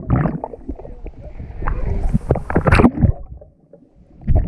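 Muffled splashes and rushing bubbles of people plunging into the sea, heard through a waterproof action camera at and under the surface: three surges of water noise, the loudest about two and a half seconds in.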